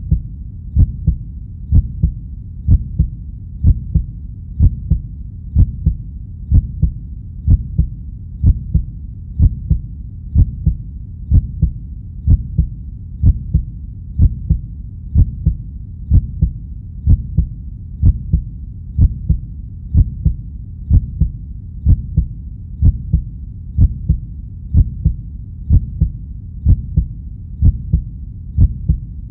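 Heartbeat sound effect: a steady lub-dub of paired low thumps at about 62.5 beats a minute, over a continuous low rumble.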